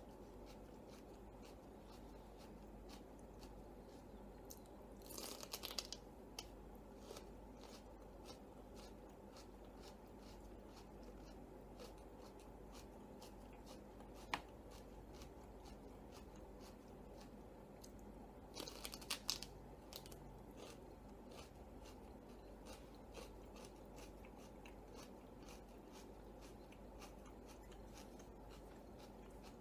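Faint, close-miked chewing with many small clicks, and two short bursts of crunching about five and nineteen seconds in as raw celery sticks are bitten. A single sharp click sounds near the middle.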